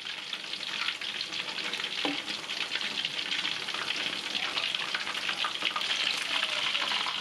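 Coriander-spiced, flour-coated chicken pieces deep-frying in hot oil in an aluminium wok, making a dense, steady crackle and sizzle. A metal spatula turning the pieces adds a few light clicks.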